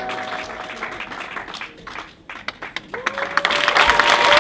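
The music's last held notes fade out, a few scattered claps follow, and about three seconds in a theatre audience breaks into loud applause, with long whoops of cheering over it.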